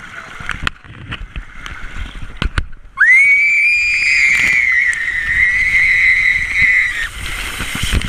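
Water rushing and splashing around a rider on a steep water slide. About three seconds in, a loud high-pitched scream leaps up in pitch and holds, wavering, for about four seconds before stopping.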